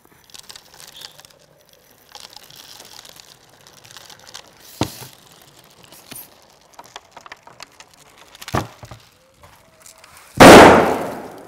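A 1.5-litre plastic PET bottle of water and dry ice bursts with a sudden loud bang near the end, blown apart by the carbon dioxide gas building up inside the capped bottle. Before it, only faint handling sounds and a couple of clicks as the dry ice is poured in and the cap put on.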